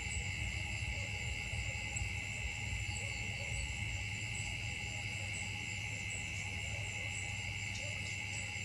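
Steady chorus of insects in the trees, a continuous high-pitched drone in several bands that does not break, over a low rumble.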